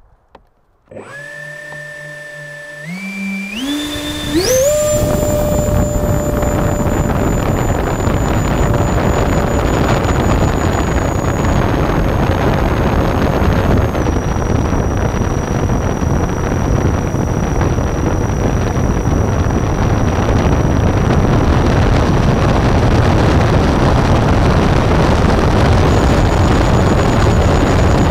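Electric ducted-fan motors of a large 3D-printed SR-71 model jet spool up in several steps to a high whine, from about one to four and a half seconds in. They then run at high power under a loud rush of airflow over the airframe in flight. The whine drops a little in pitch twice in the middle and climbs again near the end.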